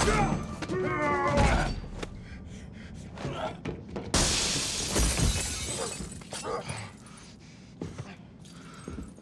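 Film fight sound effects: punches and thuds, with a loud crash of breaking glass about four seconds in and further blows after it. Music with a singing voice fades out in the first second or so.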